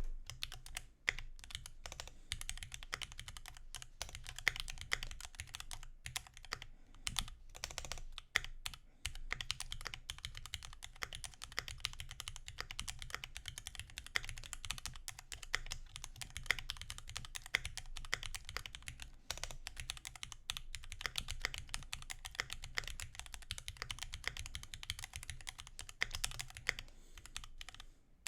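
Modded Keychron Q2 aluminium mechanical keyboard being typed on continuously, fast irregular keystrokes with short pauses, over a steady low hum, picked up by a Razer Seiren Mini USB microphone.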